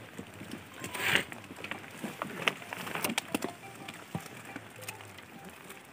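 Hand pruning shears (secateurs) snipping young apple shoots: a louder snip with a short rustle of twigs about a second in, then several lighter clicks.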